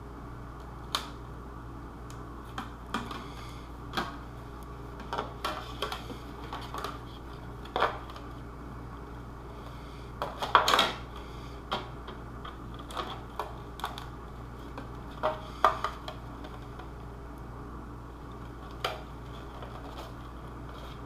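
Hands removing and handling Velcro strips and armor pieces: scattered light clicks, taps and rustles at irregular intervals, with a louder cluster of scraping about halfway through, over a steady low hum.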